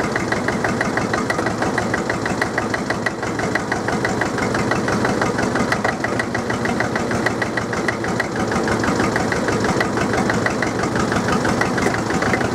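Drott 100 loader's diesel engine running cold just after starting, with a fast, even knocking beat that holds steady throughout.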